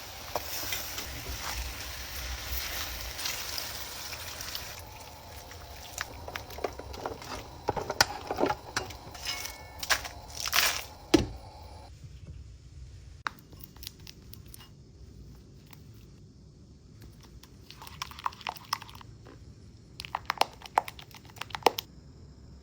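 Food-preparation handling sounds. A steady hiss runs for the first few seconds, then comes a run of sharp clicks, knocks and crinkling. After that it goes quieter, with two short clusters of clicks near the end.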